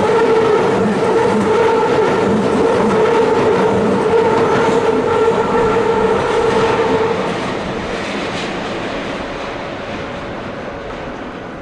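Keikyu 2100 series electric train running over a level crossing, with wheel clatter and a steady ringing tone; the tone ends and the train sound fades about seven seconds in as the train moves away.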